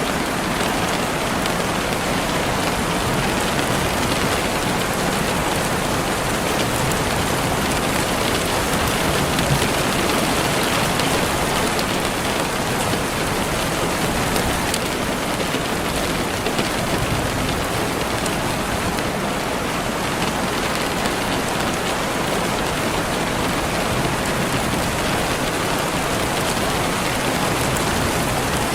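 Steady heavy rain falling and pattering on surfaces, an even rushing hiss with scattered drop ticks.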